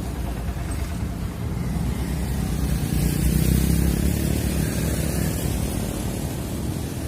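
A motor vehicle passing, its engine and tyre noise building to a peak about three to four seconds in and then fading.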